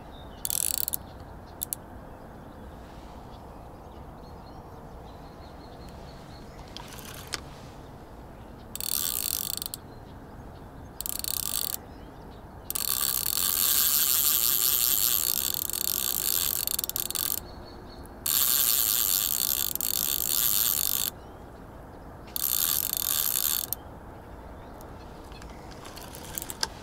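A spinning reel's drag clicking in a rapid buzz, in spurts lasting from under a second to about five seconds, as a hooked catfish pulls line off against it. The fish is taking line faster than it can be stopped.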